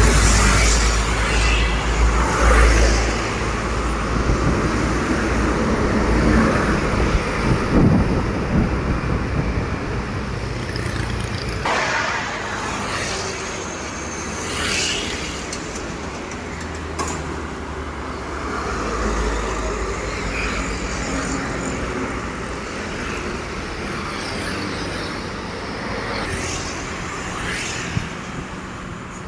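Road traffic passing close by: heavy trucks and cars going past with engine rumble and tyre noise. It is loudest in the first few seconds and again around eight seconds in, then settles to a lower, steady traffic noise.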